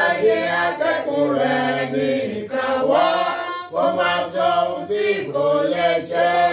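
A small group of men and women singing a Yoruba praise chorus together, unaccompanied, in long held notes.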